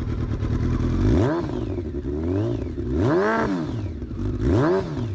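Kawasaki ZX-12R's inline-four sportbike engine with an aftermarket slip-on exhaust, idling and then blipped three times, each rev rising sharply and dropping back to idle.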